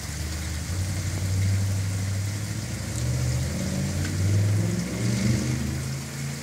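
A motor vehicle's engine running and accelerating, its pitch climbing in steps over the last few seconds, over the steady hiss of falling rain.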